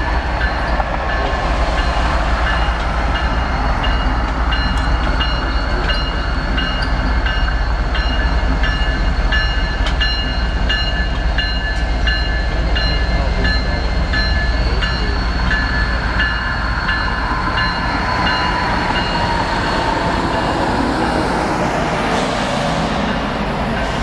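A Norfolk Southern GE ES44AC diesel locomotive running slowly past with a deep steady rumble and its bell ringing over and over. About three-quarters of the way through, a single tone slides down in pitch.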